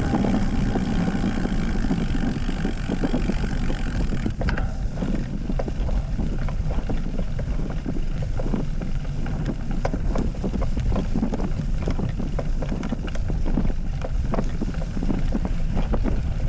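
Wind rushing and buffeting on the microphone while cycling, with many small irregular knocks and rattles throughout.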